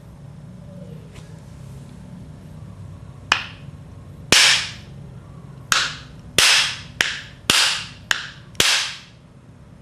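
OS 46AXII two-stroke model engine's crankcase rapped down onto a small wooden block, eight sharp knocks with a brief ring after each, to knock the ball bearing out of the case.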